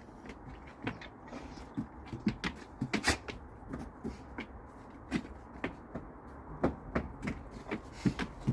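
A dog, just released from a stay, making irregular light clicks and knocks, about two or three a second.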